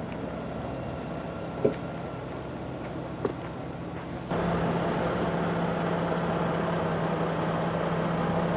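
An engine running steadily with two brief knocks, then, from about four seconds in, a heavy truck's diesel engine idling louder with a steady low drone.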